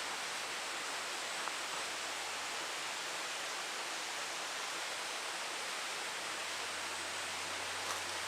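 Steady, even outdoor background hiss, with a couple of faint ticks and no bird calls.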